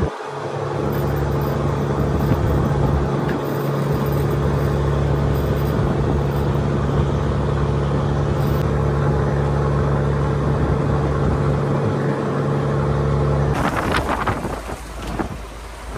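Fishing trawler's inboard engine running at a steady, deep hum, which cuts off abruptly near the end.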